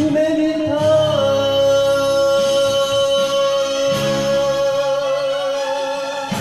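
A man singing an enka song into a handheld microphone over backing music, holding one long note for about five seconds that wavers into vibrato near the end.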